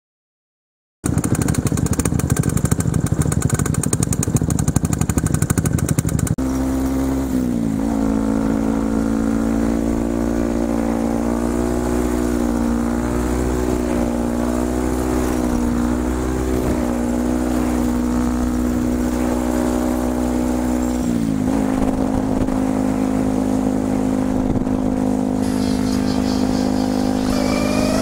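Yamaha WR125's single-cylinder four-stroke engine with an Akrapovic exhaust, heard while riding: it starts about a second in with a rougher, busier note for some five seconds, then settles into a steady cruising note that wavers slightly and drops in pitch about three-quarters of the way through.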